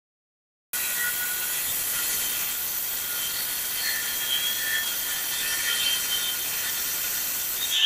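Makita cordless circular saw cutting through aluminum sheet, a steady high-pitched cut that stops abruptly near the end.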